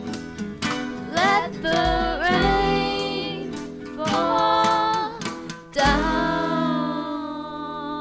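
A woman's voice singing over acoustic guitar, gliding up into held notes. About six seconds in she takes one long note that slowly fades.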